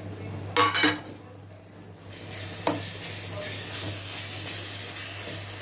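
Onion-and-spice masala sizzling in a steel kadai as a spoon stirs grated raw mango into it. The sizzle swells about two seconds in, with a sharp knock of the spoon on the pan shortly after.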